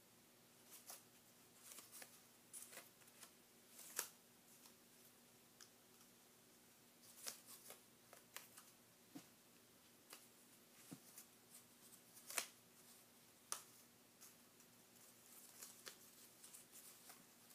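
Faint, irregular papery taps and clicks of an origami paper butterfly knife (balisong) being flipped open and closed, its folded-paper handles knocking together. The loudest clicks come about twelve and thirteen and a half seconds in.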